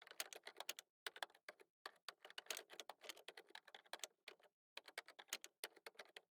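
Rapid light clicking in about five bursts with brief pauses between them, like fast typing.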